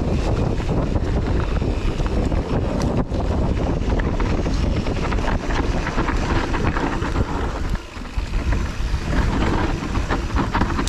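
Wind buffeting a chest-mounted action-camera microphone during a fast mountain-bike descent on a Kona Process 153, with tyre roar on dirt and a steady clatter of chain and frame rattle over rough ground. The noise drops briefly about three-quarters of the way through.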